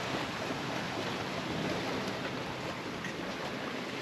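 Steady rush of sea water and wind around a sailing yacht under way in open ocean.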